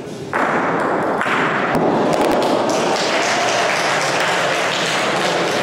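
Crowd of spectators applauding a bocce shot, breaking out suddenly just after the start and going on steadily, with a few sharper claps standing out about two seconds in.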